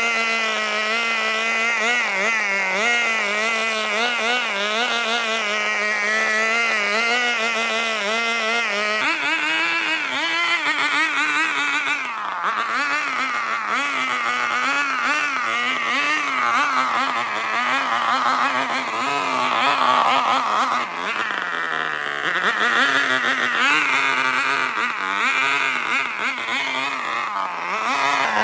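A small motor running steadily, its pitch wavering up and down as the load changes and stepping up about nine seconds in.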